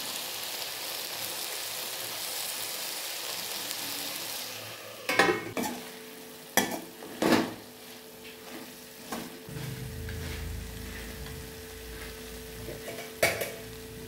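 Chopped carrots and beans sizzling in oil in an aluminium kadai. From about five seconds in, a utensil scrapes and knocks against the pan in several loud strokes as the vegetables are stirred, and once more near the end.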